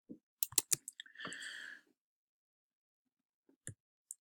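Several sharp computer clicks in quick succession, then a short soft rustle lasting about half a second, and two more single clicks near the end.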